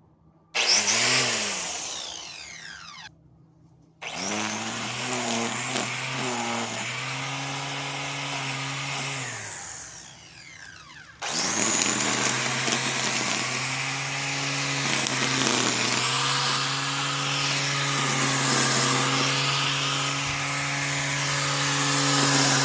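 Electric motor of a BLACK+DECKER 3-in-1 corded mower used as a string trimmer, cutting grass. It spins up about half a second in and cuts out near three seconds, runs again from about four seconds until it winds down near ten, then starts once more about eleven seconds in and keeps running, its pitch wavering as the line meets the grass.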